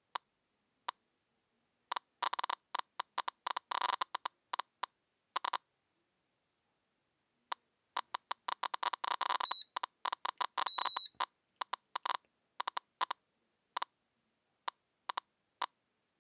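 SV500 Geiger counter ticking from its faulty beta-gamma probe: irregular clicks, a few single ones at first, then dense flurries of rapid clicks about two seconds in and again from about eight to eleven seconds, then scattered ticks. The tube is counting spuriously, far above the normal background rate of about 8–10 counts a minute.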